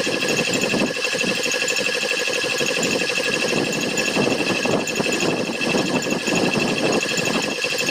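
Old belt-driven piston air compressor running steadily with a fast, even pulsing beat, charging its tank as the pressure climbs toward about 120 psi.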